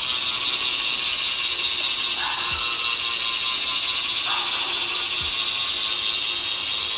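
BMX rear hub (Raptor hub with a 9-tooth driver) freewheeling as the back wheel spins. The pawls click so fast that they run together into a steady ratcheting buzz.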